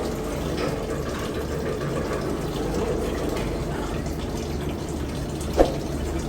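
Steady rush of water in a kitchen drain manhole, with a single sharp knock near the end.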